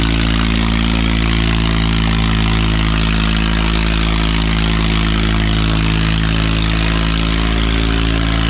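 Swaraj 855 FE tractor's three-cylinder diesel engine running loud and steady under heavy load as it drags two harrows through the soil, its pitch holding constant.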